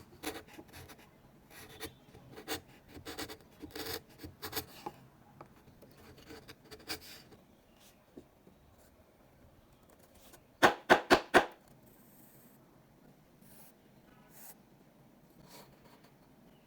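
Hand woodworking on wood: short rasping, scraping strokes for the first five seconds or so, then, about eleven seconds in, a quick run of about five sharp knocks, the loudest sounds here, with faint scratches in between.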